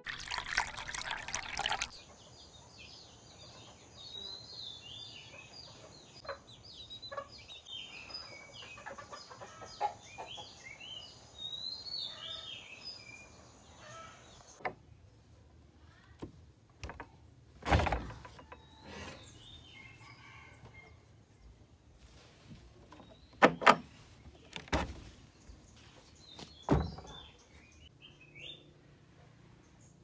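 Birds chirping over a steady high-pitched hum, after the last second or two of soft intro music. Partway through, the chirps thin out and a handful of sharp knocks and thumps follow, two of them close together.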